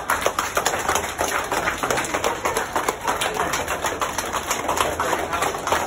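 Crowd of children applauding, a dense, steady patter of many hands clapping at once.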